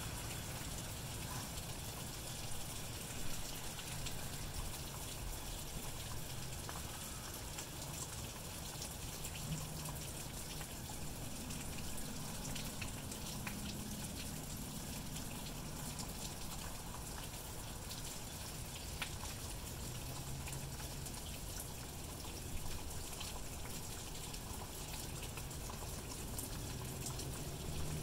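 Steady rain falling, an even hiss with scattered drips ticking close by.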